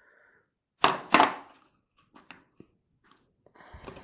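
Hand tools being handled in a plastic tool-set case: two sharp knocks about a second in, a few light clicks, then a short scraping rattle near the end.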